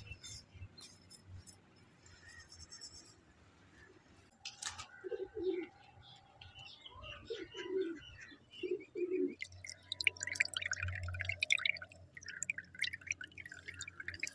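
A dove cooing in several short phrases, followed by tap water splashing into a small clay bowl of rice as it is rinsed under the stream.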